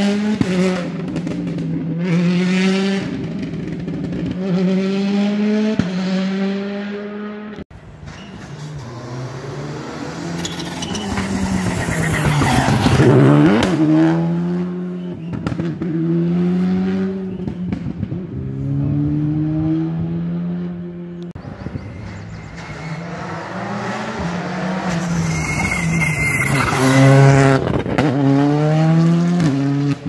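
Rally cars at racing speed, one after another. Each engine revs up through the gears, the pitch climbing and dropping back at each shift. About halfway through a car passes close, its pitch falling steeply as it goes by.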